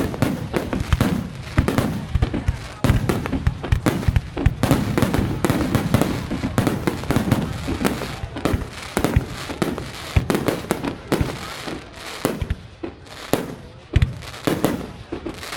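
Fireworks going off in a dense, continuous barrage: sharp bangs several times a second over a low rumble, with crackling.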